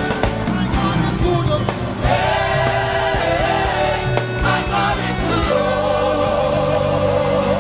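Gospel praise music: a choir and lead voices singing over a live band with drums.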